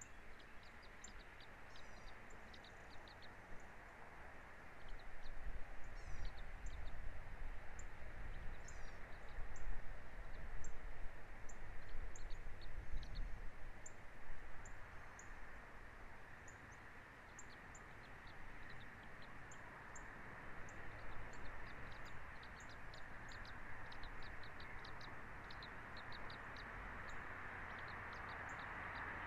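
Birds chirping: many short, high chirps, a few of them sliding in pitch, repeat throughout over a steady outdoor hiss, with a low rumble like wind on the microphone through the middle.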